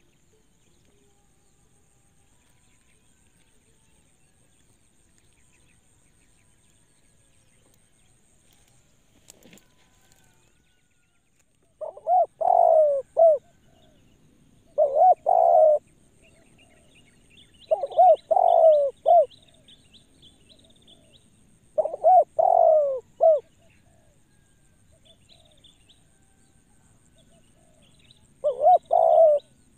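Spotted dove (tekukur) cooing: from about twelve seconds in, a repeated phrase of several coos every three to four seconds. Faint high chirps of other birds come in between. Before the cooing starts there is only a faint hiss and a single click.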